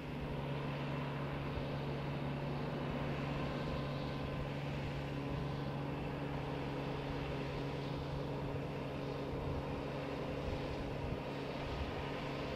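Tractor engine running steadily as it pulls a working mounted boom sprayer across the field, an even drone with a low hum.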